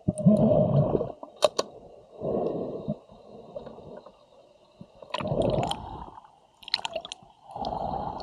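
Pool water sloshing and gurgling close to the microphone, in four surges about two to three seconds apart, with a few sharp clicks between them.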